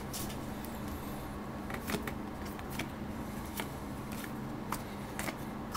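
A few faint, scattered clicks and light rustles of trading cards and packs being handled, over a steady low electrical hum.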